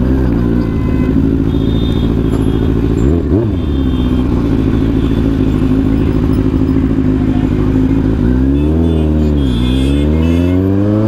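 Motorcycle engine running at a steady cruising pitch while riding through town traffic. About eight seconds in, the revs rise and fall twice, then climb steadily toward the end as the bike accelerates.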